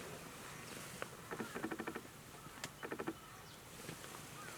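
A bird's rapid chattering call, two short runs of quick repeated notes, the first about a second and a half in and the second shorter near the three-second mark.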